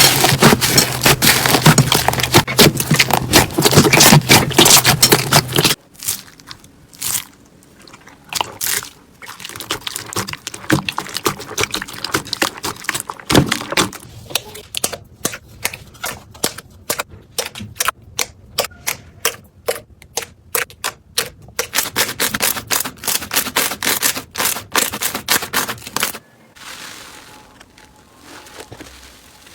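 Crunchy slime being squeezed and pressed, crackling and popping in rapid sharp clicks. The clicks are dense for the first few seconds, then come sparser and more separate, and give way to a softer hiss near the end.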